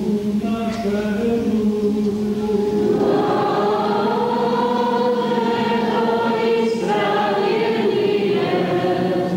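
Choir singing a slow liturgical chant, holding long notes that shift every second or two.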